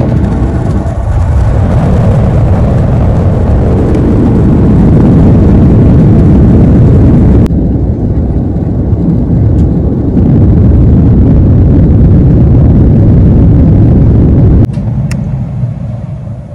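Loud jet airliner cabin noise during takeoff and climb: a steady rumble with a hiss on top. The hiss drops away abruptly about halfway through, and the noise falls suddenly near the end.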